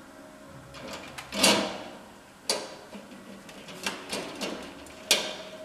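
Steel axle being slid through loosely fitted bearings and bearing plates: metal sliding and knocking, a run of separate clunks and clacks, the loudest a longer scrape about a second and a half in.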